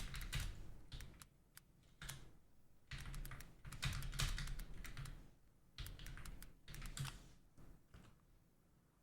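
Typing on a computer keyboard in several short bursts of key clicks, stopping about eight seconds in.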